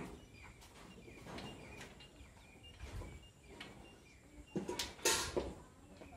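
Small birds chirping on and off in the background, with a short clattering, scraping burst of noise about five seconds in.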